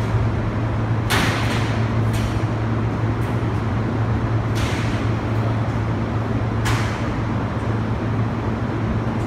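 Steady low machinery hum throughout, with four short scraping sounds from the metal air-conditioner casing being handled. The scrapes come about a second in, near two seconds, near five seconds and near seven seconds.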